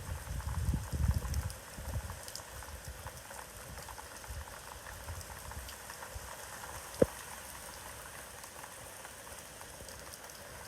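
Steady rain falling in hurricane wind, a fine even patter, with gusts rumbling on the microphone in the first couple of seconds and one sharp tick about seven seconds in.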